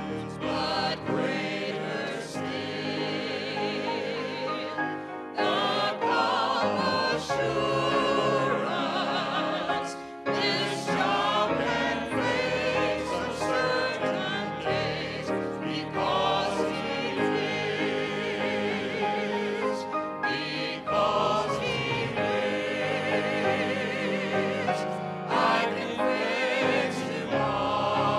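Male gospel vocal group singing in harmony with piano accompaniment: held notes with vibrato, in phrases with short breaks between them.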